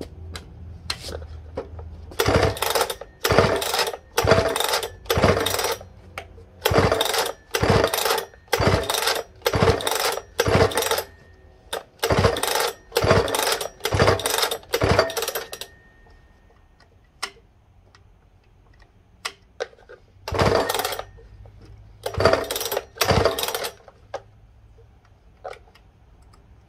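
Partner K700 two-stroke cut-off saw being pull-started on choke: the recoil starter cranks the engine in quick pulls, about one a second for a dozen or so, then three more after a short pause. The engine never fires, which the owner puts down to a clogged carburetor.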